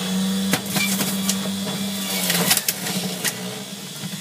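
Electric juicer motor running with a steady hum while broccoli stalks are fed down its chute, with several sharp knocks of the stalks and pusher. The hum drops slightly in pitch about two and a half seconds in as the motor takes the load.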